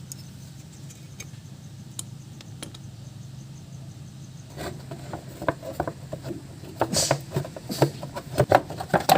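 Tools and metal engine parts clinking and clattering during engine teardown, sparse at first and then a busy run of sharp clicks and knocks from about halfway through, over a steady low hum.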